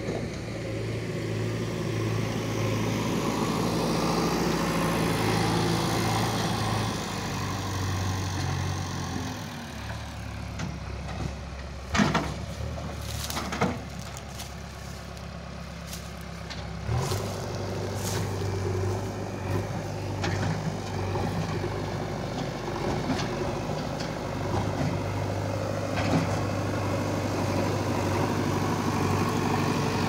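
A JCB 3DX Eco backhoe loader's diesel engine runs steadily as the machine works. Its note drops about a third of the way in and picks up again a little past halfway. A few sharp knocks come in the middle.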